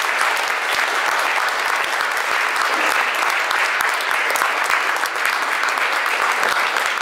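Sustained applause from a seated audience in a large hall, many hands clapping at a steady level at the end of a talk.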